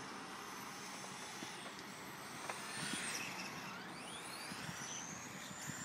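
Radio-controlled car's motor whining, its pitch dropping sharply about halfway through and then climbing back up and holding high, over steady outdoor background noise.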